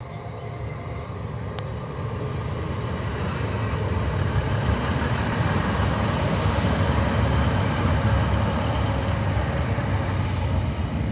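Northern Class 156 two-car diesel multiple unit passing close by: a low diesel rumble with wheel-on-rail noise that grows louder as the train draws level, then stays loud as the rear car goes by.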